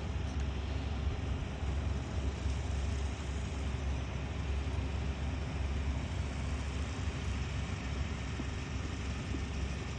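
Kubota ER470 combine harvester running steadily, a constant low engine hum under the even noise of its machinery.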